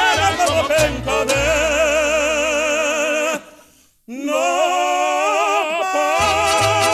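Two tenors singing long held notes with wide operatic vibrato over a mariachi band of violins, guitars and guitarrón. About halfway through, everything breaks off for a moment, then the voices come back on a long held note and the band's bass beat resumes under them.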